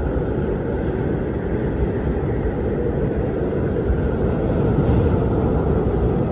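Howling wind blowing steadily with low, uneven rumbling gusts, swelling slightly about five seconds in.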